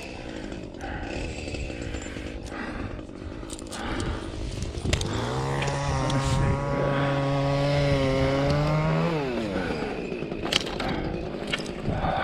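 A chainsaw revs up about five seconds in, holds at a steady high pitch for about four seconds, then winds back down. A few sharp knocks follow near the end.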